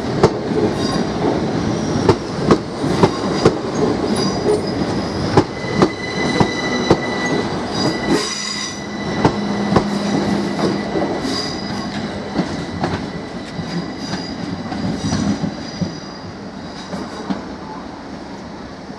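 Class 377 Electrostar electric multiple units pulling out over pointwork: wheels clicking sharply over rail joints and points, with high wheel squeal coming and going on the curves. The sound fades over the last few seconds as the rear of the train draws away.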